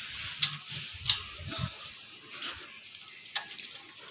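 A handful of sharp, irregular metallic clicks from a screwdriver and ring spanner working a rocker-arm adjusting screw and locknut on a Mitsubishi 4D56 diesel head, while the exhaust valve clearance is set to 0.15 mm. The loudest clicks come about a second in and near the end.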